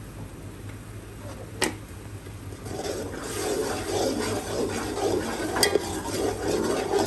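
A steel spoon stirs frying onion-tomato masala with ginger-garlic paste in a steel pot. The sizzling and scraping swell about three seconds in. The spoon clinks sharply against the pot twice, once early and once near the end.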